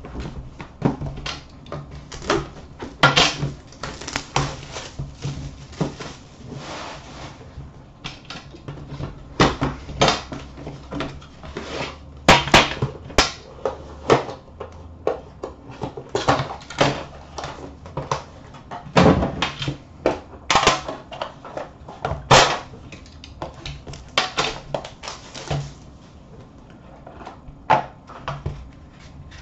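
Hands unpacking a box of hockey cards: irregular knocks, clicks, scrapes and rustles of cardboard, wrapping and a metal tin and its lid being handled and opened.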